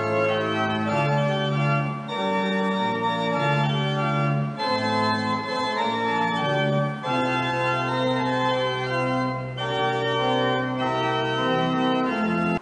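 Organ music playing slow, sustained chords. A low bass note is held through the second half, and the music cuts off suddenly at the end.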